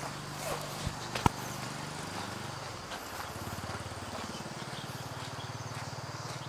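Low, steady engine hum that shifts in pitch about two seconds in and then runs with a fast even pulse. Two sharp clicks come a little after a second in.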